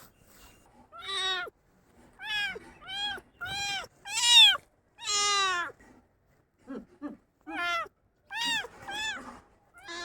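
Kitten meowing repeatedly: about ten short, high meows, each rising and falling in pitch, the loudest about halfway through, with a few lower, shorter squeaks around the seventh second.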